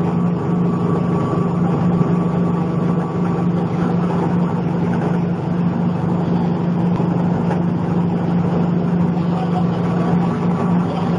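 PE plastic film agglomerator running: its motor and spinning cutter blades give a loud, steady drone with a steady low tone as plastic film is fed into the drum.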